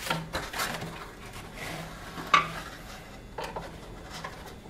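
Small metal door-lock parts clinking and rattling as they are handled and taken out of their packaging, with one sharp clink about two and a half seconds in.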